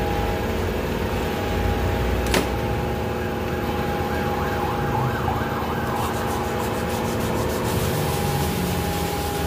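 Steady machine hum with a high, even whine and a low rumble, broken by a single click about two and a half seconds in; a faint, fast, regular scraping joins near the end.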